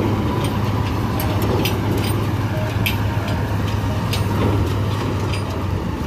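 Heavy diesel farm-machine engine running steadily, with scattered sharp clicks and rattles over the hum.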